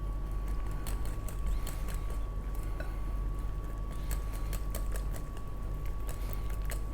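Thick flour-and-egg batter being beaten by hand in a bowl: irregular quick clicks and taps of the utensil against the bowl, several a second.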